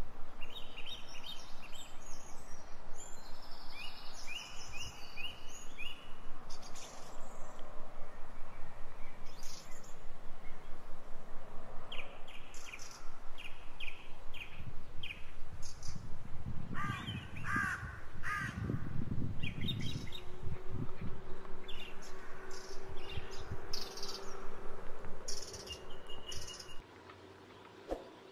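Birds calling and chirping outdoors, many short repeated chirps overlapping, with a run of lower, harsher calls about two-thirds of the way through; the birdsong fades out near the end.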